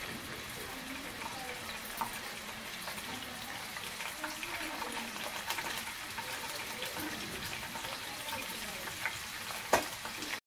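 Food sizzling in a pan while it is stirred, with small scraping clicks from the spoon and one sharp clink of metal near the end.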